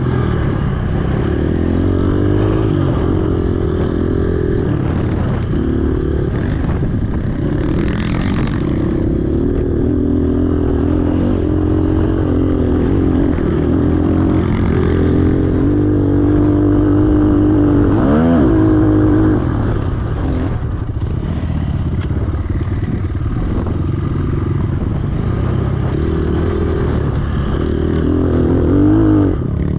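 A 250cc enduro dirt bike running under changing throttle while ridden, its engine note rising and falling, with a quick sharp rev about two-thirds of the way through and another near the end.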